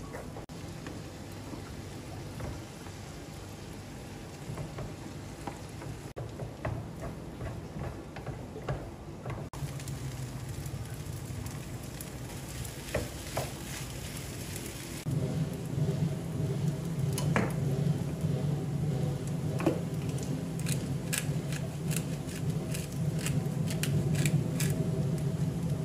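Smoked duck and rice frying in a nonstick pan, sizzling as a wooden spatula stirs and scrapes. A steady low hum underneath grows louder about two-thirds of the way in, and sharp crackles and spatula knocks come thickly near the end.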